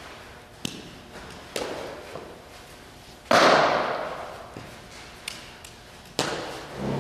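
Sharp smacks of a softball, each echoing in a large indoor training hall. The two loud ones come about three seconds in and just after six seconds, with lighter taps and clicks between.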